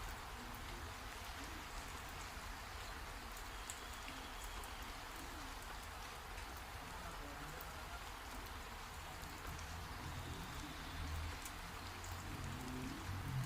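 Steady rain falling, with scattered drops ticking close by. A low rumble sits underneath and grows stronger near the end.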